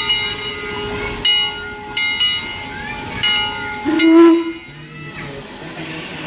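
Steam hissing from the Heisler geared steam locomotive 'Tuolumne' as it moves off, with its bell ringing in repeated strokes about once a second. About four seconds in comes a brief louder tone, then the bell stops.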